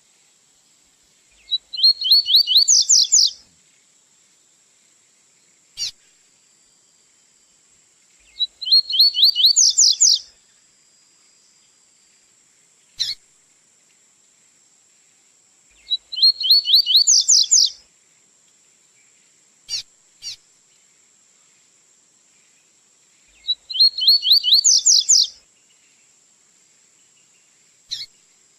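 Male double-collared seedeater (coleiro) singing the 'tui-tui' song type. Four phrases come about seven seconds apart, each a fast run of sweeping high notes lasting about two seconds, with single short call notes between the phrases.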